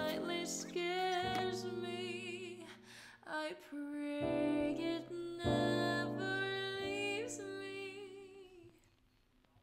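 Background music: a song with a singer holding wavering notes over plucked strings, dying away near the end.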